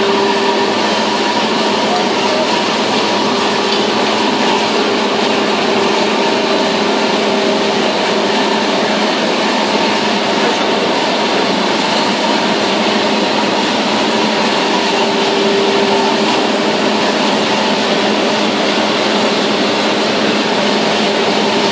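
Paperboard slitting and rewinding machinery running steadily, a loud, even mechanical noise with a pitched hum that comes and goes several times.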